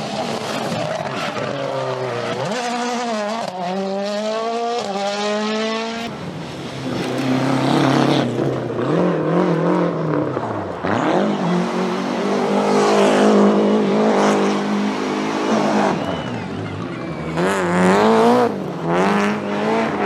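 Rally car engines revving hard, the pitch climbing and dropping through gear changes and lifts, with an abrupt switch to another car about six seconds in. A few sharp cracks come near the end.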